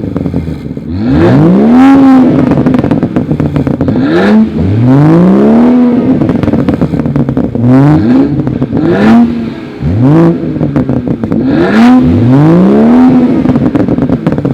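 Tuned BMW 440i's turbocharged inline-six exhaust revved in repeated throttle blips, each pitch rising sharply and falling back: a short blip followed by a longer rev, three times over. Few pops or burbles follow on the overrun, which the owner takes for a problem with the flash tune cutting his throttle input.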